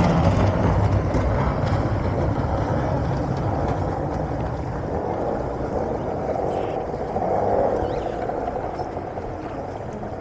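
Racing boat outboard engines running out of sight on the course, a steady motor drone that slowly fades away.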